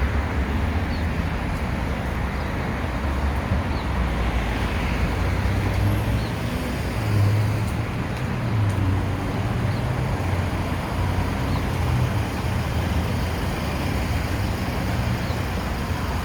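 Steady road traffic noise: a continuous rumble of vehicles and tyres on the road, with a strong low drone that swells a little now and then.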